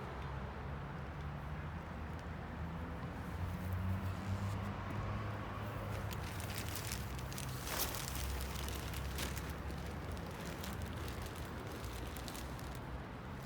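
Street cats crunching food, a run of small quick clicks and crackles from about halfway on, over a steady low rumble.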